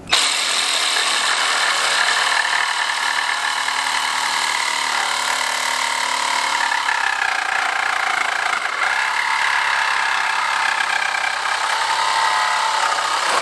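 Ryobi XRS-18 18-volt cordless reciprocating saw starting up and running steadily as its wood-cutting blade saws through a wooden plank.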